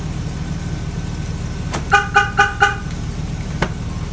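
Truck engine idling steadily while the Viper alarm system sounds four quick horn-like chirps about two seconds in, with a click just before them and another click near the end.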